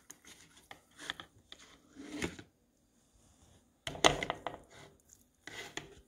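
Metal fork scraping and tapping against a plastic Nordic Ware microwave omelet maker as a cheese-topped omelet is pried loose from it, in scattered scrapes and clicks, with a louder knock and clatter about four seconds in.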